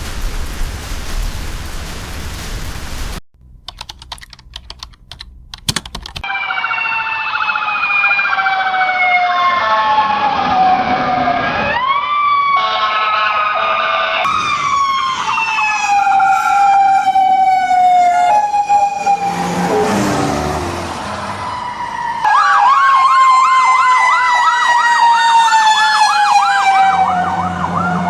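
A burst of hiss, then a few clicks. Then an emergency vehicle siren sounds loudly in long, slowly falling wails with sharp upswings. From about 22 seconds in it changes to a fast warbling yelp.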